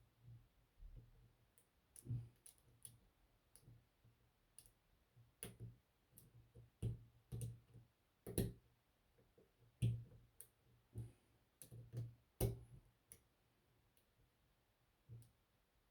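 Lock pick and tension wrench working in the keyway of a Yale shutter padlock: faint, irregular metallic clicks and taps as the pick works the pins, a few sharper ones scattered through.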